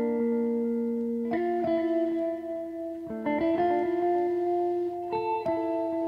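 Background music: a melody of held notes, a new note or chord coming in about once a second.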